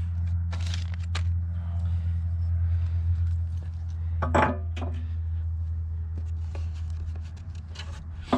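Light metallic clinks and taps of steel bucket-tooth parts being handled, over a steady low hum that fades near the end. A short voice sound comes about four seconds in.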